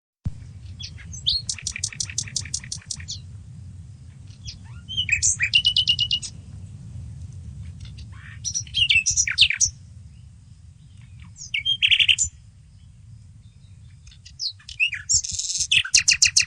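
Common nightingale singing: five separate phrases with pauses between them, several built from fast, rapidly repeated notes and others from whistles. A steady low rumble runs underneath.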